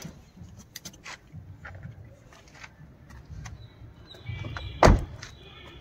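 A car's rear door being shut: a few light clicks and knocks of handling, then one solid thud about five seconds in.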